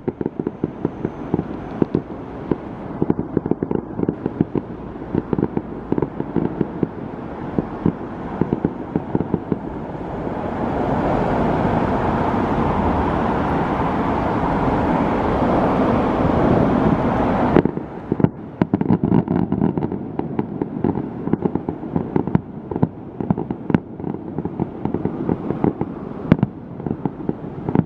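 Distant aerial fireworks bursting in rapid, irregular bangs. About a third of the way in, the sound thickens into a dense, continuous din that stops abruptly, and then single bangs carry on.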